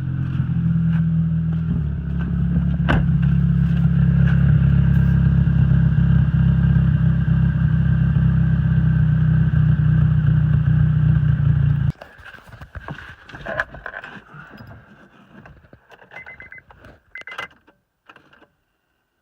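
2001 Honda Civic's four-cylinder engine running at a steady idle, then cutting off abruptly about twelve seconds in, followed by a few faint clicks and knocks.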